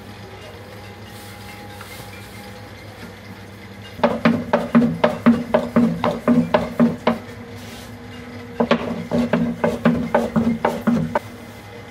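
A long, thin wooden rolling pin clacking against a round wooden board as dough is rolled back and forth. The knocks come about four a second in two runs, the first starting about four seconds in and the second a little before the ninth second.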